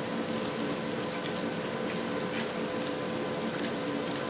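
Hot, stretched suluguni cheese curd being squeezed and folded by gloved hands to press the liquid out of its pockets, giving faint wet squelches every second or so over a steady hum and hiss.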